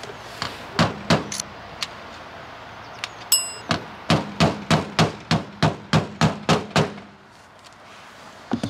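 Hammer driving nails through a 0.7 mm zinc eaves flashing into the flat roof's edge: a few scattered blows, a short metallic ring, then a steady run of about a dozen strikes, roughly three a second.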